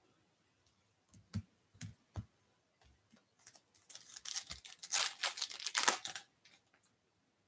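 A few light knocks, then the foil wrapper of a Topps Holiday baseball card pack being torn open, with a loud burst of crinkling from about three and a half to six seconds in.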